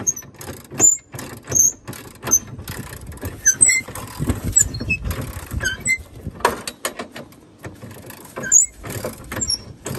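Irregular mechanical clatter: sharp clicks and knocks, with short high squeaks scattered through.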